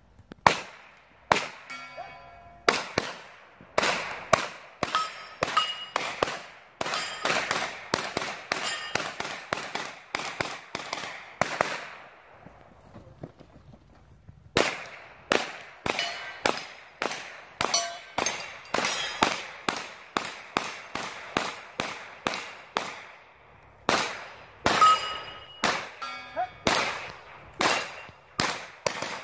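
9mm pistol-caliber carbine shots fired in rapid strings, several of them followed by a ringing clang of steel targets being hit. The firing stops for about two seconds a little before the middle, then picks up again and runs on.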